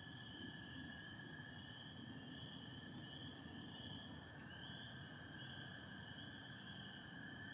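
Distant chorus of spring peepers, their overlapping high peeps blending into a steady shrill band, with American toads trilling continuously at a lower pitch beneath them, over a faint low rumble.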